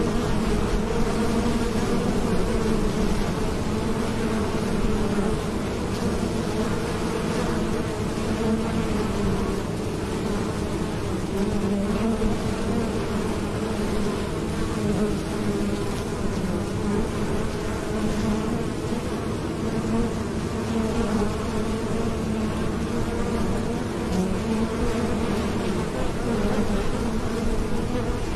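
Many honeybees buzzing as they fly in and out of a hive entrance: a steady, continuous hum with a fairly constant pitch.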